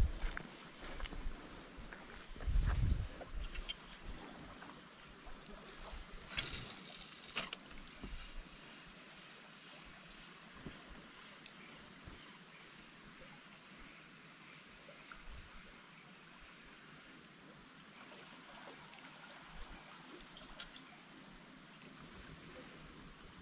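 Steady high-pitched insect drone, one unbroken tone, with a couple of brief ticks about six and seven and a half seconds in.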